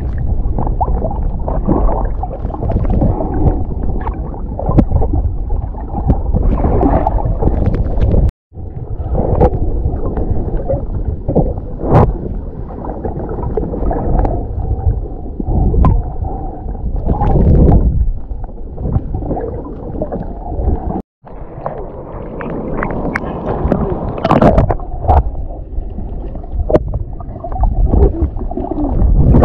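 Muffled underwater sound picked up by a camera held just below the surface: low rushing and gurgling water with scattered clicks and crackles. The sound drops out completely for a moment twice.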